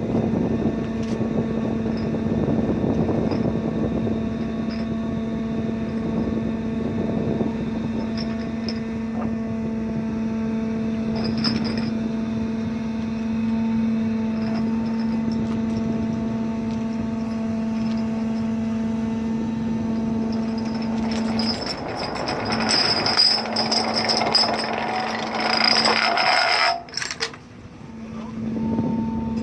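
Steady mechanical hum of workboat and deck-crane machinery running while a spar buoy is lowered by the crane. About three-quarters of the way through, a louder, noisier rushing stretch of several seconds sits over the hum and cuts off abruptly.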